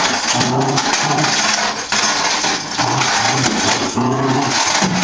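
Continuous metallic jingling rattle of a cat toy being shaken and batted about, with short low pitched sounds repeating about twice a second.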